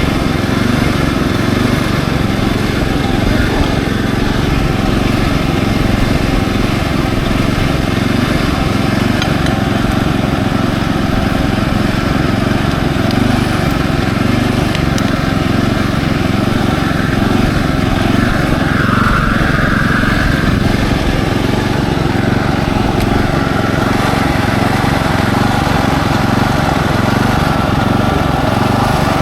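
Small engine of a Kubota SPJ400 walk-behind rice transplanter running steadily.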